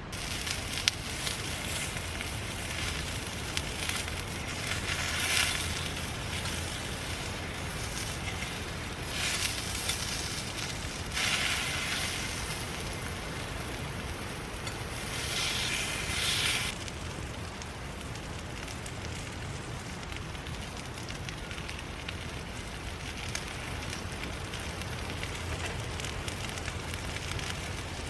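Wood fire burning in a fire pit, crackling steadily with scattered pops, including a sharp pop about a second in. The hiss swells louder several times for a second or two, the last swell cutting off suddenly about two-thirds of the way through.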